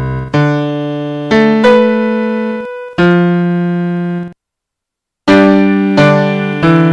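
Slow solo piano music: single notes and chords struck every second or so, each left to ring and fade away, with a full break of about a second midway.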